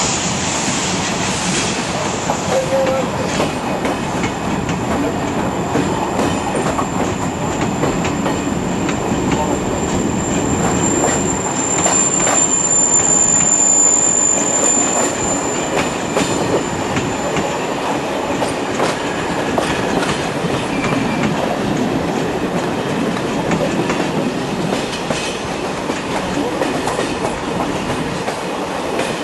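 A steam-hauled train rolling along the track, with a steady rumble and the clickety-clack of wheels over rail joints. A high thin wheel squeal sounds for several seconds midway.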